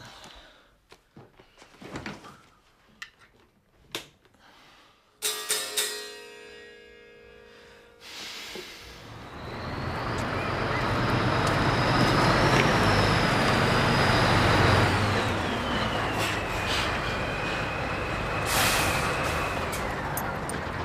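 Heavy lorry pulling up, its diesel engine growing loud from about eight seconds in. Near the end its brakes squeal with a falling whine and the air brakes give a short hiss.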